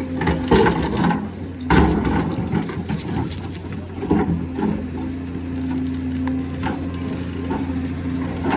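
Hydraulic excavator's diesel engine running steadily under load, with sharp clanks and knocks as it works, most of them in the first half.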